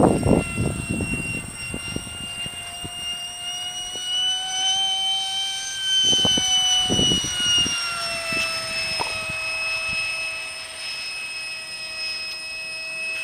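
Electric ducted fan of a radio-controlled F-4 Phantom model jet flying high overhead: a steady high whine that rises a little in pitch about halfway through, then falls back. Brief low rumbles come near the start and again about halfway through.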